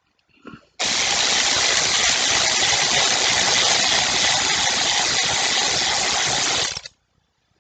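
Skil 7.2-volt cordless power wrench running with a drill bit in its quarter-inch driver attachment, held in the air with no pressure on it. The motor starts abruptly about a second in, runs steadily for about six seconds, then winds down.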